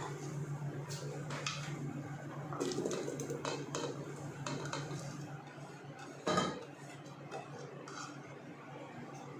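Sliced onions scraped off a plate into a nonstick pot of hot oil: scattered clinks and knocks of the plate and ladle against the pot, one louder knock about six seconds in, over a steady low hum.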